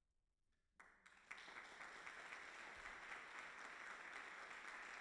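Audience applauding: after near silence, the clapping starts abruptly about a second in, fills out within half a second, and holds steady.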